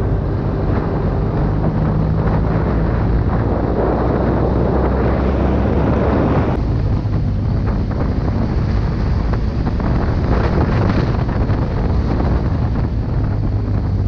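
A motor engine running steadily, with heavy wind noise on the microphone over it. Its deepest drone drops away about six and a half seconds in.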